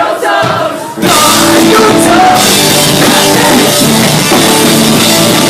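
Live pop-punk band playing loudly: after about a second of crowd voices, the full band comes in at once with drums, distorted guitars and singing, and carries on at a steady loud level.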